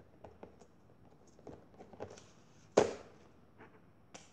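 Red slime being stretched and pressed against a plastic board, making faint sticky clicks and crackles, with one loud slap a little under three seconds in and a sharp smaller click near the end.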